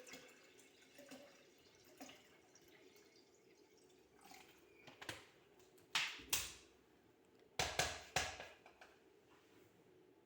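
Faint trickling, then a handful of sharp knocks and clinks from kitchen vessels, two close pairs about six and eight seconds in, as cold water is added to lemon juice concentrate.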